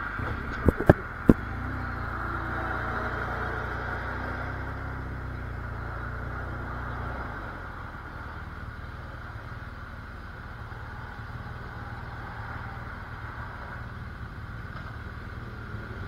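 BMW R1200GS flat-twin engine running at low speed as the motorcycle rolls in, then idling more quietly from about seven seconds in. Three sharp knocks about a second in are the loudest sounds.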